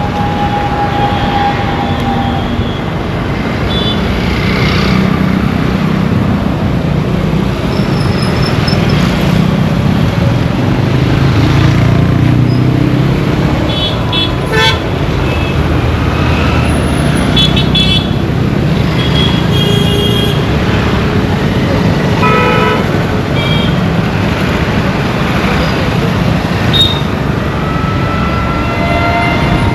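Steady heavy road-traffic rumble with vehicle horns honking many times, short toots and a few longer blasts scattered through it.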